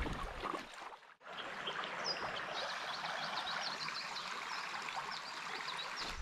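Shallow river riffle running over stones: a steady rush of water, which drops out briefly about a second in and then resumes, with short high chirps repeating over it.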